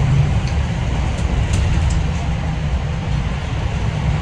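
Cabin noise of a MAN ND323F double-decker bus on the move: the diesel engine and road noise make a steady low rumble, with a few faint rattles from the bodywork.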